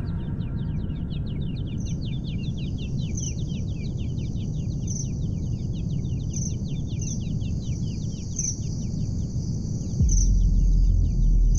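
Birds chirping in quick, repeated short calls over a steady high insect trill and a low rumble. About ten seconds in, a deep bass boom comes in and holds.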